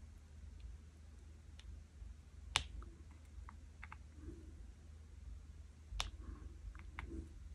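Scattered light clicks and taps of a diamond painting pen picking up square drills and pressing them onto the sticky canvas, with two sharper taps about two and a half and six seconds in, over a faint low hum.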